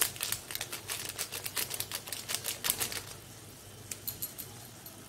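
Onions, tomatoes, garlic and cashews frying in butter in a non-stick pan, crackling with quick, irregular pops; the crackle thins out and quietens about three seconds in.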